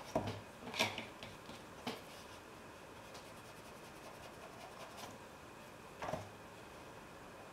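A flat paintbrush working on watercolour paper: a few brief soft taps and rubs, three in the first two seconds and one more about six seconds in, over a faint steady background.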